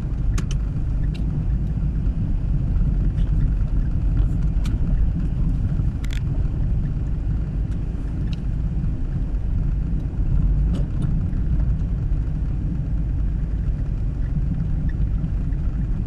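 A car driving on an icy winter road: a steady low rumble of tyres and engine, with a few scattered sharp clicks.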